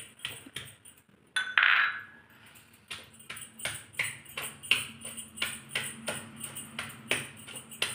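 Stone pestle pounding chilli-garlic paste in a stone mortar, a steady run of dull knocks about three a second, with one louder clatter about one and a half seconds in.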